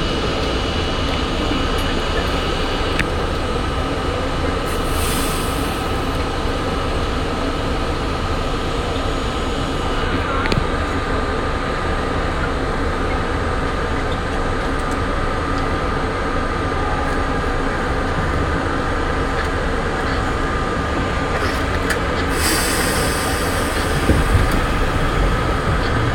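R32 subway train running through the tunnel: a steady rumble of wheels on rail with a continuous high squeal, and bursts of hiss about five seconds in and again near the end.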